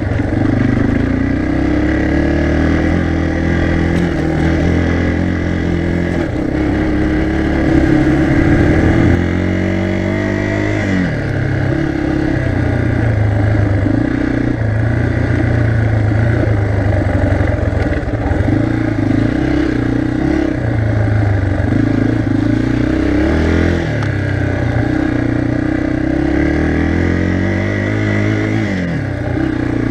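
Yamaha TT-R 230's air-cooled single-cylinder four-stroke engine pulling the bike along a dirt trail. Its pitch rises and falls with the throttle, with three sharp drops in pitch spread through the ride.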